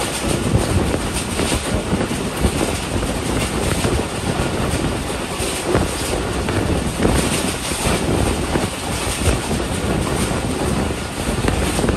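Passenger train running fast along the track, heard from aboard: a steady rush of wind and rolling wheel noise with occasional knocks from the wheels on the rails.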